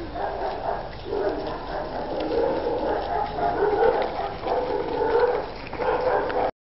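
A dog barking repeatedly, cutting off suddenly near the end.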